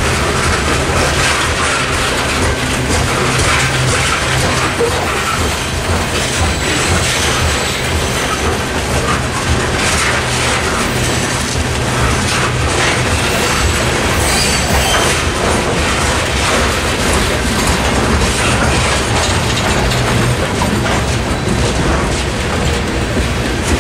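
Coal hopper cars of a freight train rolling past, their wheels on the rails making a loud, steady running noise.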